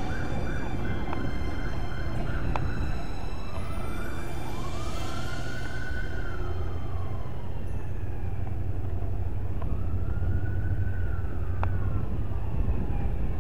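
Distant emergency-vehicle siren. It opens with a quick run of short repeated pulses, then goes into a slow wail that rises and falls about every six seconds. A steady low rumble lies underneath.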